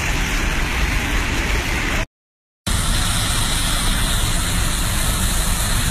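Muddy monsoon floodwater rushing down a rocky slope and over a waterfall: a steady, loud wash of noise that drops out completely for about half a second at a cut, then resumes with more hiss.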